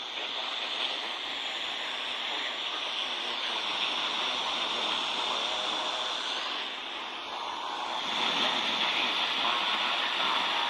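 Steady static hiss from a radio receiver on a weak, fading station, the broadcast signal lost in the noise.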